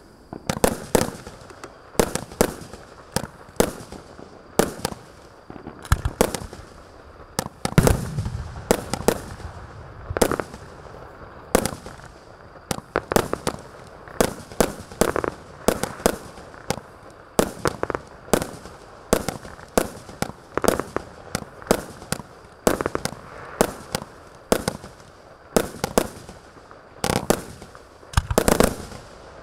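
A 20 mm, 36-shot consumer fireworks cake firing shot after shot: sharp launch and burst reports come about one to two a second, with a quick cluster of shots near the end.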